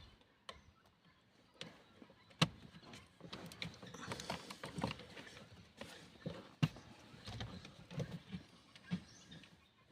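Light plastic handling noise as a replacement blinker switch is worked into place on a 2009 Honda CR-V's steering column: faint rubbing and scraping with a few sharp clicks, the most distinct about two and a half seconds in and near seven seconds.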